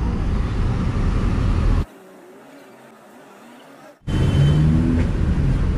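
Engine and road noise inside a moving old Agrale city bus: a dense, low rumble. About two seconds in it drops suddenly to a much quieter hum, and about two seconds later the loud rumble comes back.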